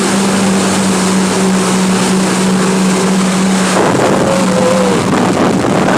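Jet ski engine running at a steady pitch under a loud rush of wind and water; its steady note breaks off and shifts about four seconds in.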